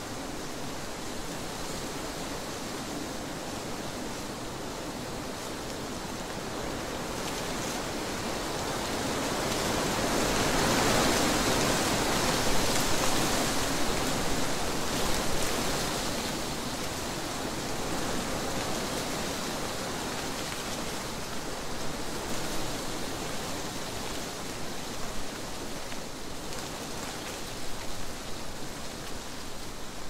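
Wind blowing through trees, a steady rushing noise that builds into a stronger gust about ten seconds in and then eases off again.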